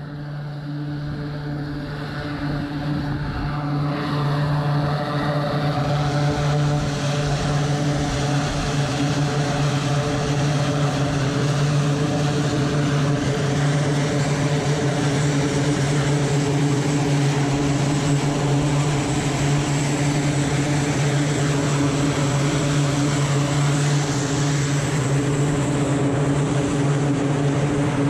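Turboprop engines of an E-2C Hawkeye running: a steady propeller drone with a strong low hum and a hiss above it, fading in over the first few seconds.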